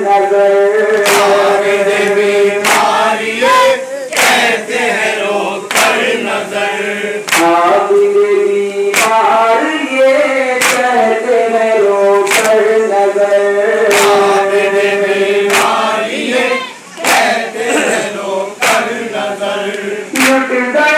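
Men chanting a noha (Shia lament) together in held, sung lines, with sharp unison chest-beating strikes (matam) landing about every second and a half to keep the beat.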